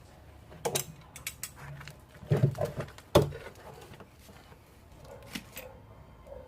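Mechanical clicks, rattles and knocks of parts being handled, in irregular clusters, with the loudest sharp knock about three seconds in.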